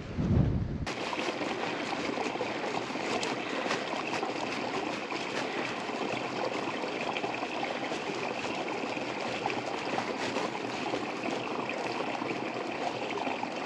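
Mountain stream running steadily, an even rush of water, after a brief low rumble at the very start.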